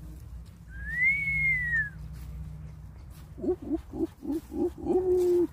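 A person whistling one long note that rises and then falls, about a second in, then, from a little past halfway, a run of about six short low calls ending in a longer held one.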